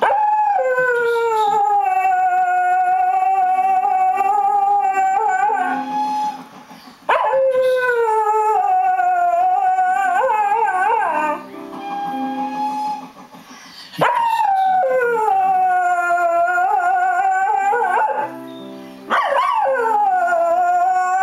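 Cocker spaniel howling, four long drawn-out howls in a row, each starting high, sliding down and then holding with a wavering end. Music from a television advert plays underneath.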